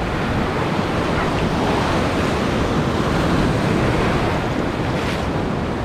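Surf breaking and churning against a rocky shoreline, a steady rush of white water that swells a little midway, with wind rumbling on the microphone.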